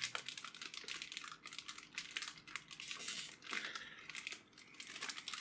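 Anti-static plastic bag crinkling and rustling in the hands in quick irregular crackles as it is worked open, with a short lull about four seconds in.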